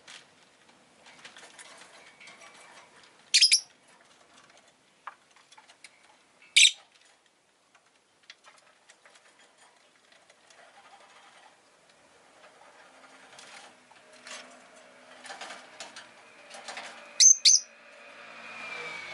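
Rosy-faced lovebird giving short, sharp, high-pitched calls: one about three seconds in, another near six and a half seconds, and two in quick succession near the end, with faint clicks and rustles in between. A low swell of street noise builds near the end.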